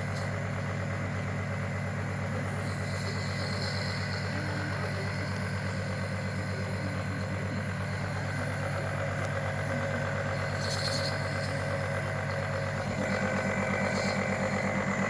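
An engine idling steadily with an even pulsing beat. About thirteen seconds in it picks up a little, running slightly faster and louder.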